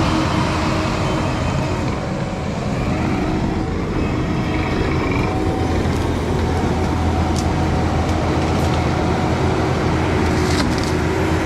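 Skid steer's diesel engine running steadily under load while it works a hydraulic tree shear, with a few sharp ticks or cracks in the second half.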